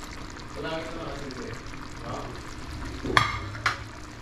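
Fish simmering and sizzling in a tomato sauce in a stainless steel pan while being stirred and shifted with a utensil. Two sharp knocks of the utensil against the pan about three seconds in, half a second apart.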